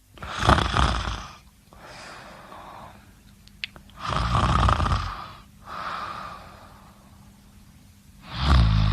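A person snoring: three loud snores about four seconds apart, each followed by a softer breath, with a short click between the first two.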